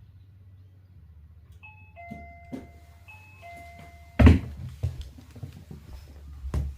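Electronic door chime sounding a two-note ding-dong, high then low, rung twice in a row. A loud thud follows, about four seconds in, and another near the end.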